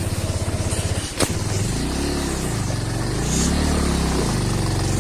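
Vehicle engine running, revved up and back down twice in the middle, with a single sharp knock about a second in.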